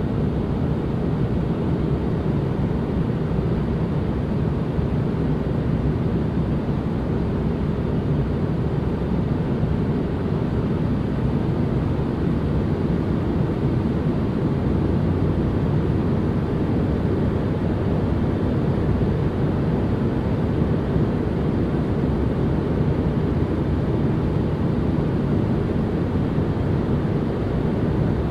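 Steady, unchanging ambient noise, deep and rumbling, with most of its weight low and only a little hiss higher up.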